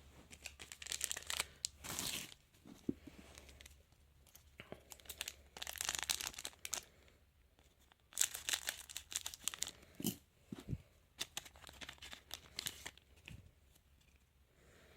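Trading card packets being torn open and their wrappers crinkled, in about four short bursts of tearing and rustling, with a few small clicks in between.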